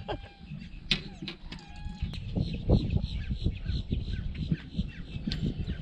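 A bird calling a few times in short pitched calls, over scattered low knocks and thumps.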